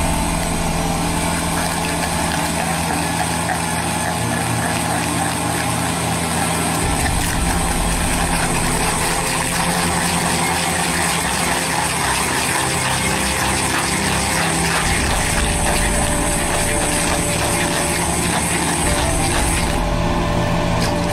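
Neuson wheeled excavator's diesel engine running steadily under load while its hydraulic auger stump grinder bores into a tree stump, shredding the wood.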